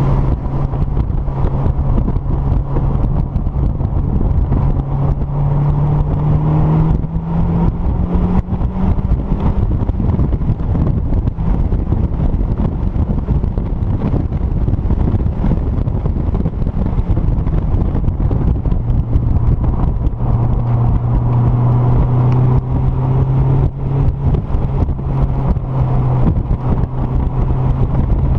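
Mazdaspeed Miata's turbocharged 1.8-litre four-cylinder engine pulling hard on track, heard from the open cockpit over rushing air. The engine note climbs from about five to nine seconds in, then falls away, and is held high again through the last third.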